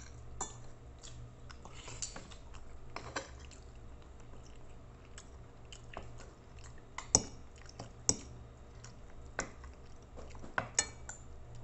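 Eating sounds: a fork and spoon clinking and scraping on a plate, along with chewing. The clinks come irregularly, with a few sharper ones in the second half, over a steady low hum.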